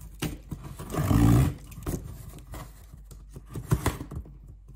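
Cardboard shipping box being cut and pried open with a snap-off utility knife, the flaps scraping and tearing. There is a loud rough scrape about a second in and a few sharp clicks.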